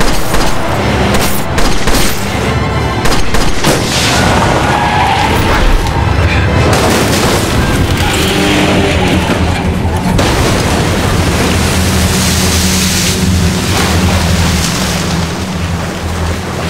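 Movie car-crash sound effects: booms and sharp impacts as a car crashes and flips, and a splash near the end as it lands in water. Dramatic music with a sustained low drone plays underneath.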